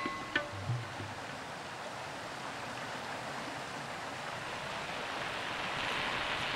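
Steady rush of flowing river water, swelling a little toward the end; a last note of music dies away at the very start.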